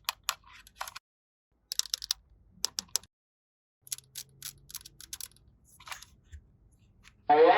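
Small plastic toy pieces clicking and tapping as they are handled, in irregular clusters of light clicks. Near the end a loud, wavering pitched sound starts abruptly.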